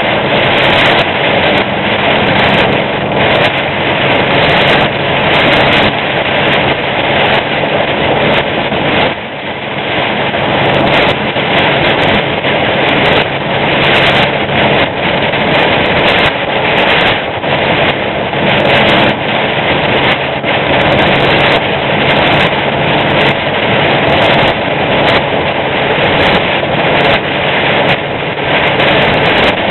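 A semi truck heard from inside the cab while it drives in heavy rain: a steady engine drone under a loud, dense hiss of rain and road noise. The noise dips briefly about nine seconds in.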